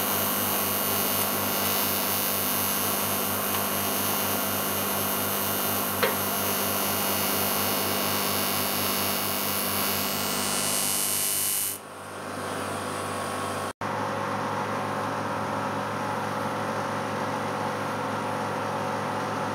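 TIG welding arc burning with a steady buzz and high hiss, cutting off suddenly about twelve seconds in. A duller, steady machine hum follows.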